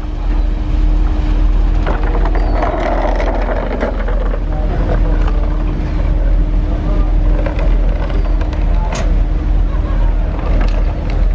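Passenger ferry's diesel engines running with a steady low rumble and a constant hum, its propellers churning the water as it manoeuvres at the pier, with wind on the microphone.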